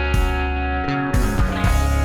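Background rock music with guitar, a heavy steady bass and a regular drum beat.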